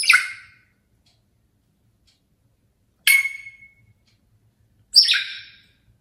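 African grey parrot giving three sharp calls: one right at the start, one about three seconds in and one about five seconds in. Each starts suddenly and fades away within about a second.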